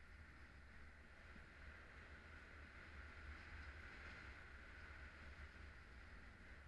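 Faint, steady rush of airflow on a paraglider pilot's camera microphone in flight: a low rumble with a hiss that swells slightly about four seconds in.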